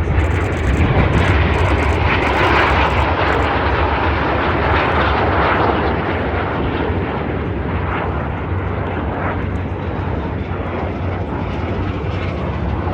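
Aermacchi MB-339 jet aircraft making a display pass, their Viper turbojets giving a loud roar. The roar swells to a peak a few seconds in, then eases slightly and carries on steadily.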